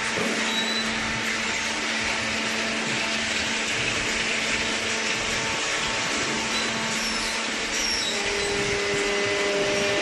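Steady industrial machinery noise in a cardboard baling plant, an even motor-driven whir with a low hum underneath. A faint higher hum joins near the end.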